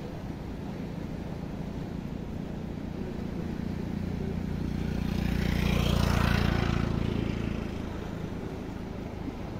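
An engine vehicle passes close by, swelling to its loudest about six seconds in and then fading away, over a steady low rumble of wind and water.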